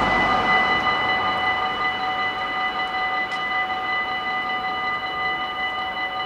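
Dutch level-crossing warning bell ringing steadily while the half-barriers come down to close the road.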